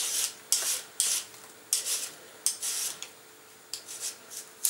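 A vegetable peeler scraping down a carrot in quick repeated strokes, about two a second, shaving off very thin strips; the strokes thin out and grow fainter after about three seconds.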